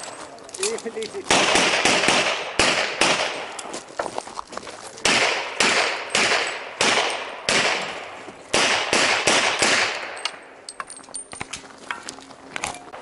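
A competitor's gun fired in an IPSC practical shooting stage: sharp shots in quick pairs and singles, about fifteen in all, with short pauses between strings, each shot echoing across the range.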